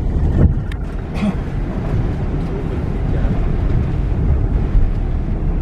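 Low, steady rumble of a bus's engine and wheels heard from inside the cabin as it drives up the ramp onto a ferry, with a couple of light knocks in the first second or so.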